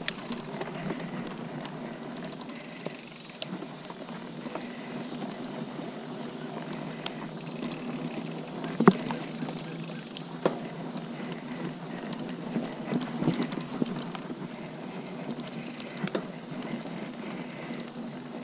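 Liv Hail mountain bike rolling along a dirt singletrack: a steady rumble of tyres and frame, broken by sharp clicks and rattles over bumps. The loudest rattle comes about nine seconds in, with a cluster of smaller ones a few seconds later. A thin steady high tone sits behind it.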